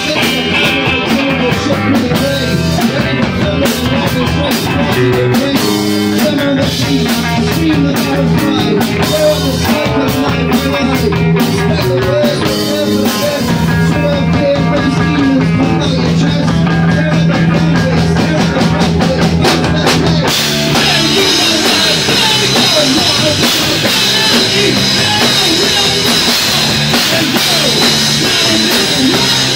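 Live rock band playing: drum kit, electric guitar and bass. About two-thirds of the way in, the sound turns brighter and fuller.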